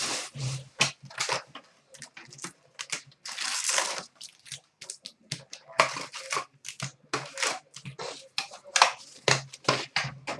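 Packaging of a hockey card box being torn open and crinkled, with many quick, irregular crackles and rustles as the wrapping and cards are handled.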